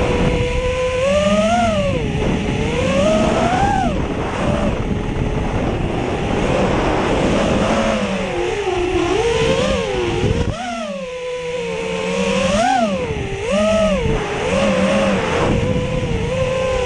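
FPV quadcopter's brushless motors (BR2205 2300KV) whining, the pitch swinging up and down constantly with throttle, over a heavy rumble of wind on the microphone. The wind rumble drops away briefly about ten seconds in.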